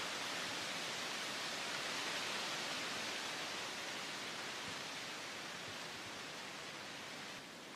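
Steady, even hiss with no distinct sounds in it, easing off over the second half and dropping a step near the end.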